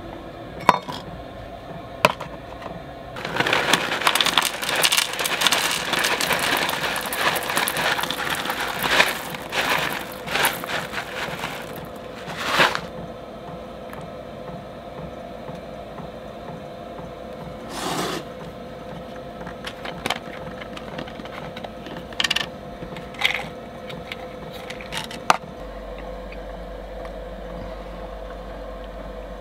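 A plastic snack bag crinkling for several seconds as granola is poured out into a metal bowl. This is followed by a few separate light clicks and knocks of containers being handled and set down.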